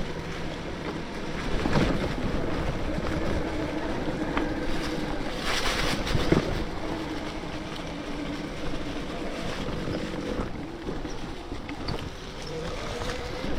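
Bafang BBSHD mid-drive electric bike motor whining under power on 72 volts, its pitch wavering with speed, over wind on the microphone and tyres rolling on a dirt trail, with a few knocks from bumps.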